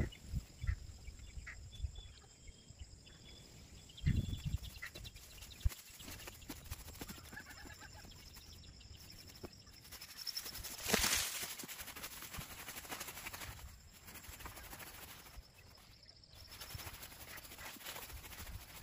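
Outdoor field ambience with scattered low thumps and a brief noisy rustle, like grass brushing, about eleven seconds in. There are faint short bird calls early on.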